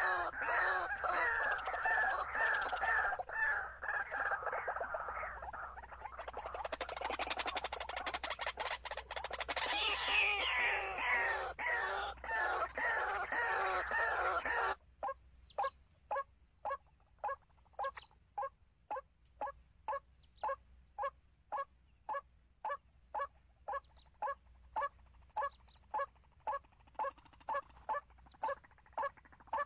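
Animal calls: a dense chorus of overlapping calls that stops abruptly about halfway through. After it comes a single short call repeated steadily, about twice a second.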